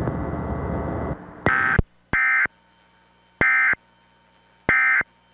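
Emergency Alert System end-of-message signal: four short bursts of screechy SAME digital data tones with brief silences between them, the code that closes an EAS test.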